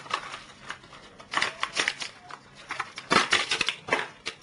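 Hands handling computer parts, probably the second DDR2 memory module and its plastic, giving two short bursts of clicks and rustles, one about a second and a half in and a louder one at about three seconds.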